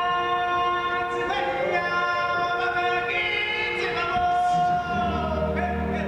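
A choir of voices sings long held notes with musical backing in a live stage performance.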